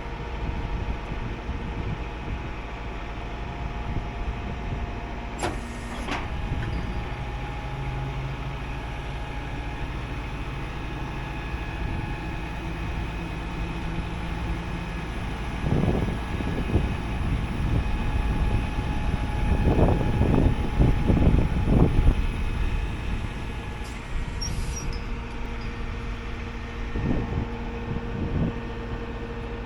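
A 6x6 off-road rollback tow truck's engine running steadily, with a few louder surges in the second half and a couple of short clicks.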